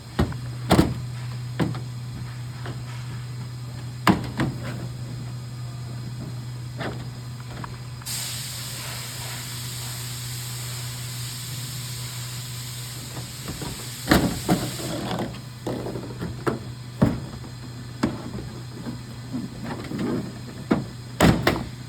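Scattered clicks and knocks of parts being handled while working on a tanning-bed ballast, over a steady low hum. A hiss comes in about 8 seconds in and stops about 15 seconds in.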